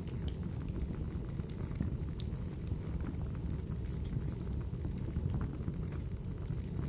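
Fire crackling: scattered sharp pops and snaps over a steady low rumble of burning.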